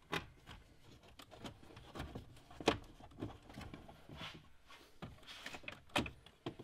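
Hands handling a car's footwell trim and carpet: scattered light clicks, knocks and rustling, with a sharper knock about two and a half seconds in and another near the end.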